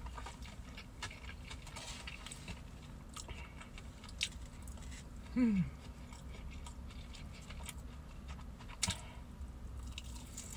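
Close-up chewing of fried chicken and rice, with small wet clicks from the mouth and a low steady hum underneath. About five seconds in comes a short falling "mm" hum of enjoyment.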